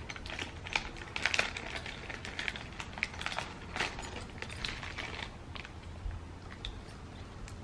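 Glass bangles clicking against one another and their plastic packing rustling as they are handled and unwrapped: soft, irregular clicks, denser in the first half.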